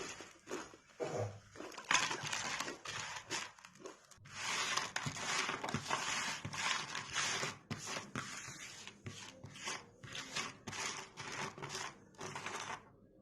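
Close-miked crunching of murukku, a crisp fried South Indian snack, being bitten and chewed in a rapid run of crackly crunches.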